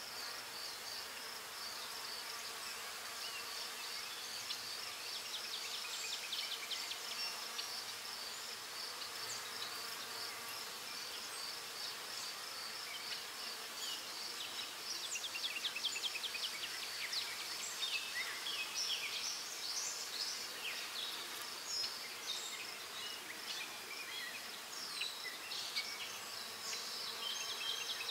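Graphite pencil scratching on drawing paper in quick runs of short shading strokes, over a steady, high-pitched, finely pulsing whine.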